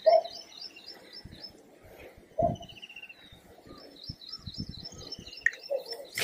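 Small birds chirping in quick high trills, one run at the start and another from about four seconds in, with slower falling chirp series between. Two brief louder low sounds stand out, one at the very start and one about two and a half seconds in.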